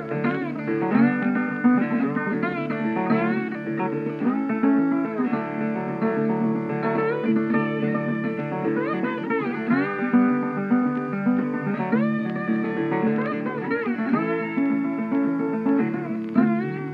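Background music led by plucked guitar, with notes that bend in pitch over a steady low accompaniment.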